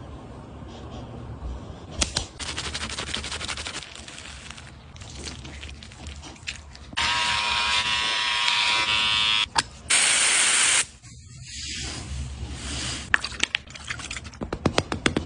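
A small handheld electric shaver buzzes for about two and a half seconds as it is run over the upper lip, cuts out, and buzzes again briefly. A short loud hiss follows. Soft rubbing sounds come before it, and sharp crackling clicks come near the end as a plastic water bottle is squeezed.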